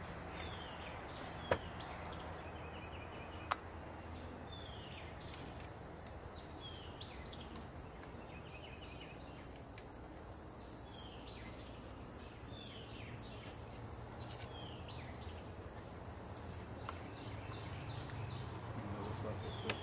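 Wild birds singing in repeated short, falling chirps over the low steady hum of honeybees at an opened hive, with two sharp clicks in the first few seconds.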